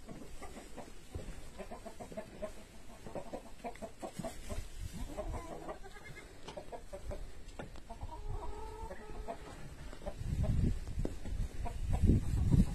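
Goat kids grazing on cut, half-dried grass: scattered clicks and rustling of the grass, with a few short animal calls around the middle. A low rumble grows louder near the end.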